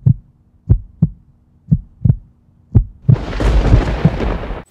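Title sound effect: deep heartbeat-like double thumps, about one pair a second, then a loud rumbling noise from about three seconds in that cuts off suddenly.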